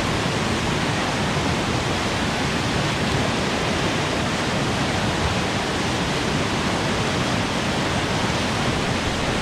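River rapids rushing steadily: close-up churning whitewater.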